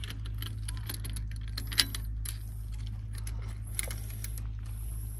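Light metallic clicks and clinks of a steel fishing-rod holder being handled, its pin and clamp parts knocking together, with a sharper click a little under two seconds in. A steady low rumble runs underneath.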